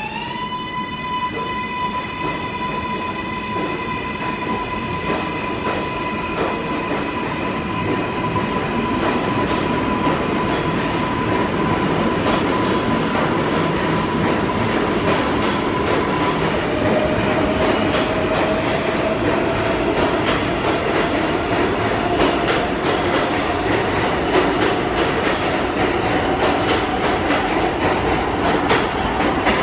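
R188 subway train accelerating out of a station. A whine with several overtones holds one pitch, steps down to a lower pitch a little past halfway and then climbs slowly, over the rumble of the wheels. The rail-joint clicks come thicker and the sound grows louder as the train gathers speed.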